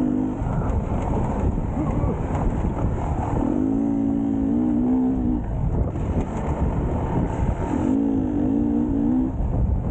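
Enduro motorbike engine running under load with a steady rumble, its note rising into a clear, wavering higher tone twice, about four and eight seconds in, as the rider revs it.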